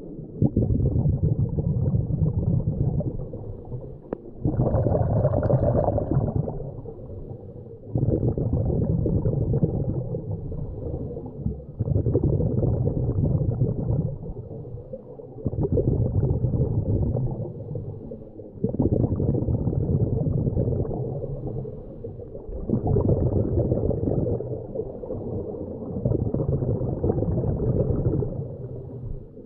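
A scuba diver breathing underwater through a regulator, with bursts of exhaled bubbles gurgling in a regular rhythm, one breath about every four seconds.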